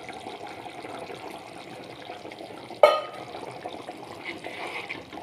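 Coconut-milk fish curry in a clay pot, simmering with a soft, steady liquid sound as a little oil is poured over it, and one sharp metallic clank just under three seconds in.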